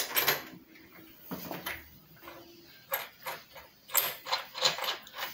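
Parts of a brush cutter's cutting head and small fittings clicking and knocking as they are handled and fitted onto the shaft: a string of irregular clicks, more frequent in the second half.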